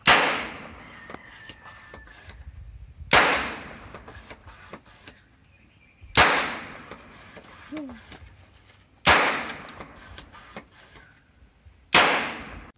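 Homemade PVC toy gun firing five shots, one about every three seconds, each a sharp bang with a short ring-out.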